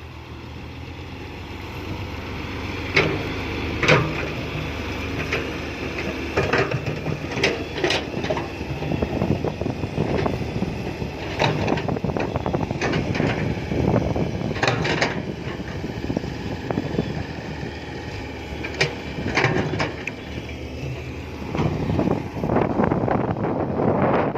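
Komatsu PC120-5 hydraulic excavator's diesel engine running under load while digging and loading soil into a dump truck, with irregular sharp clanks and knocks from the working bucket and arm.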